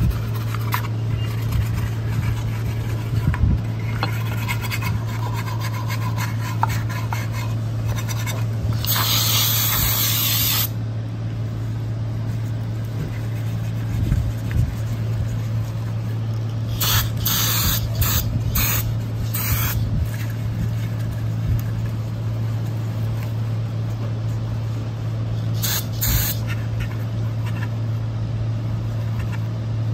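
Aerosol choke cleaner sprayed onto an oily metal cover. There is one long hiss of about two seconds, later five short bursts in quick succession and two more further on, with a rag rubbing the part in between. All of it is over a steady low hum.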